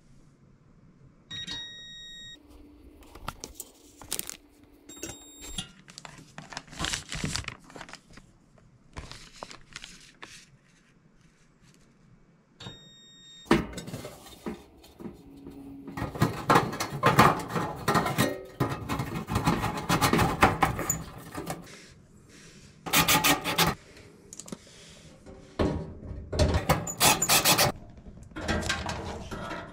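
Tools and sheet-metal dryer parts being handled during repair work: clattering, scraping and knocks, busiest in the second half, with a few brief high tones in the first half.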